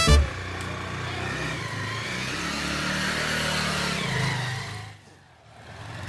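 Motorcycle engine running as the bike pulls away. The sound drops out briefly about five seconds in, then comes back.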